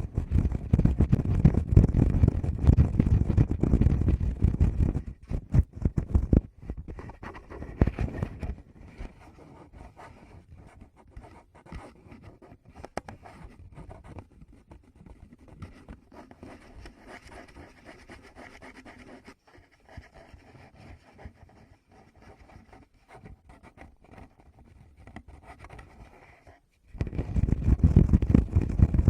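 Fingers rubbing, scratching and tapping directly on a Tascam recorder's microphones. Loud, low rumbling rubs for the first few seconds and again near the end; in between, quieter scratching with many light taps.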